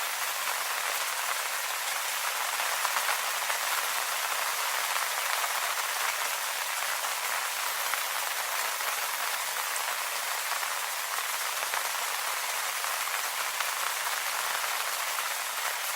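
Steady rain falling on leaves: an even hiss of many small drops, with no single drop standing out.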